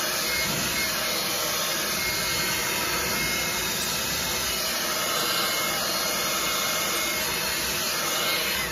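Handheld hairdryer blowing steadily, switched off at the end with a brief falling whine as it winds down.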